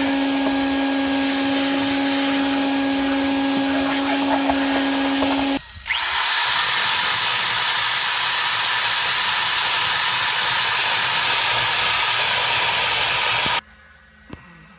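A vacuum cleaner running with a steady hum, clearing up sawdust from the cut. About six seconds in it stops briefly, then a motor starts with a quickly rising whine and runs on with a loud hiss, cutting off abruptly near the end.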